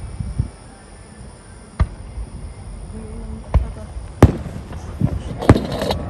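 Fireworks going off: about five sharp bangs spaced a second or so apart, with a burst of crackling near the end.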